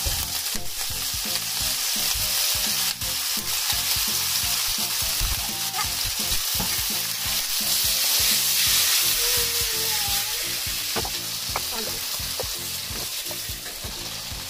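Diced bacon and canned sweetcorn sizzling in a frying pan as they are stirred and tossed with a wooden spatula, with scraping strokes against the pan.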